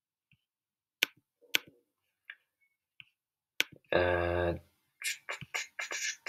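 Computer mouse clicks, about five sharp single clicks spaced over the first few seconds, then a short hummed "mm" from a man's voice, then quick keyboard typing near the end.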